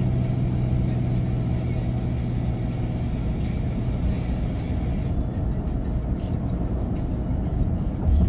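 Car cabin noise at a steady cruising speed: a continuous low rumble of tyres and engine, with a steady drone that eases a few seconds in. A short low thump comes near the end.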